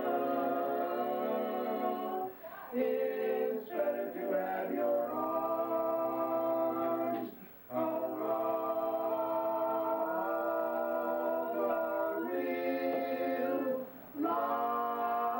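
Unaccompanied singing by a vocal group, long held notes in phrases with short breaks between them about two and a half, seven and a half and fourteen seconds in.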